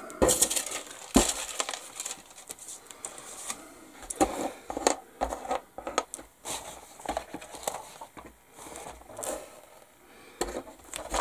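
Plastic model-kit parts being rummaged through and moved about on the bench: a string of light clicks, clatters and rustling, the sharpest knocks in the first second or so.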